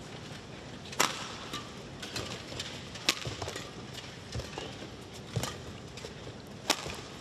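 Badminton rally: sharp cracks of racket strings striking the shuttlecock, four loud hits about one to two seconds apart with a few fainter ones between, over a low hall hum.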